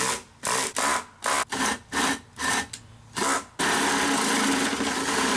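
Cordless power drill boring into a plastic bucket. The trigger is pulsed in short bursts about twice a second, then held so the drill runs steadily from about three and a half seconds in, its bit rubbing and grinding against the plastic.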